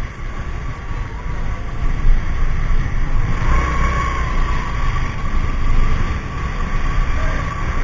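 Wind rumbling on the microphone over the engine of a Yamaha Mio i 125 scooter running at low speed, with a faint steady high tone that grows louder for about a second near the middle.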